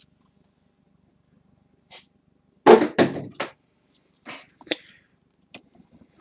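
Metal briefcase being handled: a quick run of knocks and thuds about three seconds in, then lighter metallic clicks as its latches are worked open.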